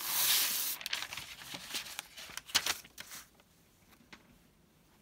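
Rustling and crinkling of a cut-out fabric applique piece being handled and laid down, a loud rustle at the start followed by a few lighter crinkles, stopping about three seconds in.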